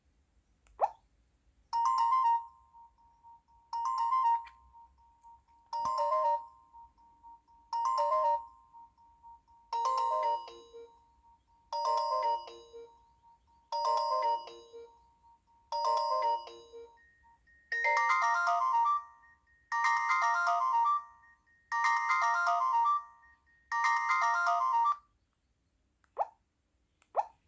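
Nokia 225 4G phone playing one of its built-in ringtones: a short electronic melody repeating about every two seconds over a held tone, with lower notes joining about halfway and a higher held tone and fuller phrase in the last third. It stops about 25 seconds in, followed by a few short blips.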